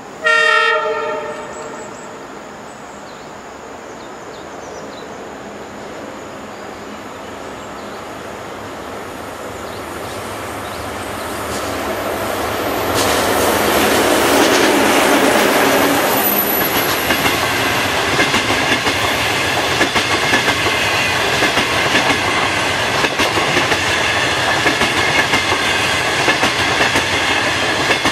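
A train horn, most likely the hauling Dongfeng diesel locomotive's, sounds once for about a second at the start. The rail noise of the passenger train then builds over several seconds and settles into a steady loud rumble with regular clickety-clack from the wheels over rail joints.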